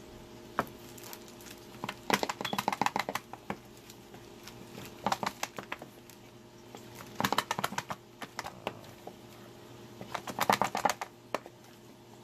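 Packaging being worked open by hand: four bursts of rapid clicking and crackling, a few seconds apart, as a box is pried open.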